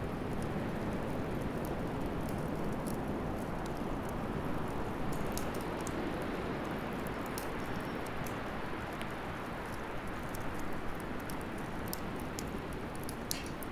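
Wood fire burning in a bonfire stand: a steady rushing sound with scattered sharp crackles and pops throughout.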